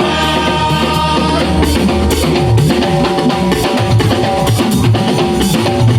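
Church praise band playing an upbeat groove with drum kit, guitar and bass under held keyboard-like tones, with no singing.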